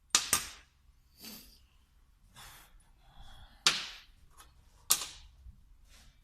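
Metal tools and injection pump parts being handled and set down on a workbench: a sharp double clack at the start, softer scrapes and knocks, then two more hard clacks about a second apart.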